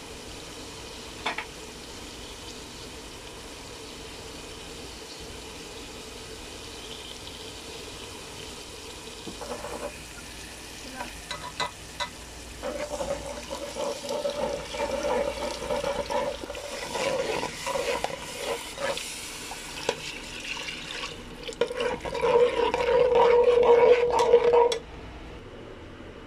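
Spiced masala frying in oil in a steel pot while a wooden spatula stirs and scrapes it against the pot. After a quiet, steady start the stirring and sizzling grow busy and loud, and they stop abruptly near the end.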